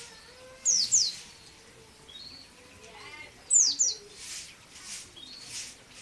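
Caged percit bird calling: short, high, sharply falling chirps, given in quick pairs about a second in and again past three and a half seconds, with fainter short notes between.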